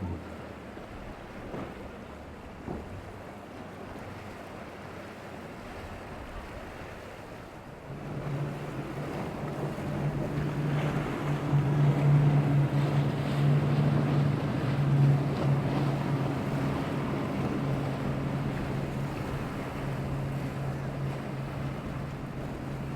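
Wind and surf noise, then about eight seconds in a boat engine comes in with a steady low drone. It grows louder and holds over the wind and waves.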